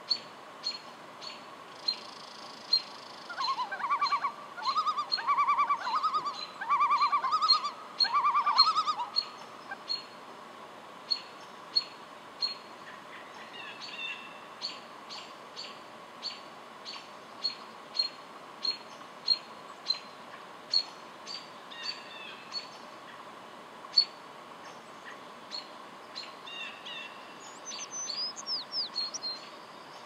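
Wild birdsong: a steady series of sharp high chips, about one or two a second. From about four to nine seconds in, a common loon calls in a run of repeated phrases, the loudest sound. Near the end a songbird adds a brief burst of quick, sweeping high notes.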